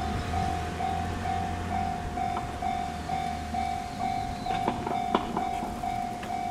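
Japanese level-crossing warning bell ringing its electronic two-tone "kan-kan" at about two strokes a second while the crossing is closed. A passing train's low rumble underneath fades out about two seconds in, and a few sharp clicks come near the end.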